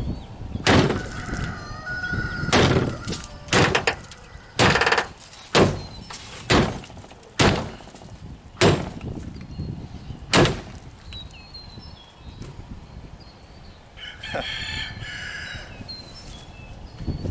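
Cast bronze sword striking a car door and its window over and over, about ten sharp hits in the first ten seconds. Near the end a rooster crows once.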